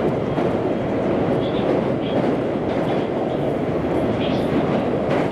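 JR West Special Rapid electric train running at speed, heard from inside the car: a steady rumble of wheels on rail with a few faint clicks.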